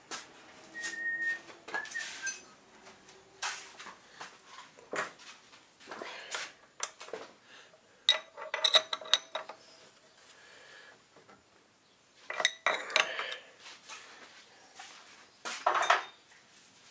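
Metal clinks and knocks of an ER25 collet chuck being tightened on a lathe: a steel C-spanner and a bar clinking against the collet nut and chuck body. The knocks come irregularly, with a few of them ringing briefly.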